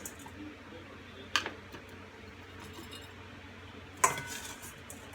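Glass canning jars clinking twice as sliced jalapeños are packed into them, the second knock louder with a brief ring.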